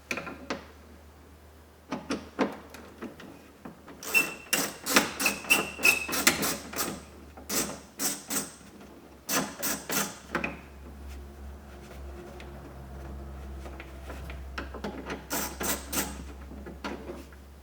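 Hand ratchet with a 10mm socket clicking in quick bursts as the bolt holding the interior door handle is turned out, with a brief squeak during the first burst. A low steady hum comes in about halfway through.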